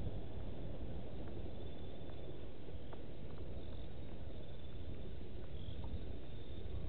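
Night-time bush ambience: faint insect trilling, cricket-like and repeating in short runs, over a steady low rumbling noise.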